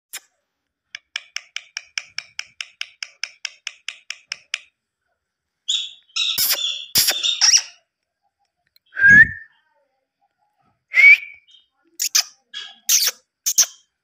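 Indian ringneck parrot calling: a fast, even series of short high chirps, about five a second, then a handful of louder, rougher calls and short rising whistles.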